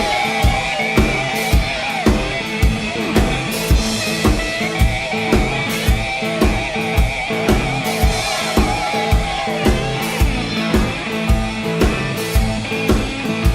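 Background music: an instrumental stretch of a song with a steady drum beat, about two hits a second.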